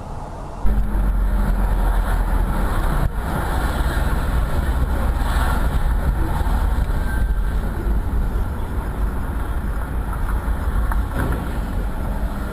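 A motor vehicle on the move: a steady low rumble of engine and road noise that starts abruptly less than a second in.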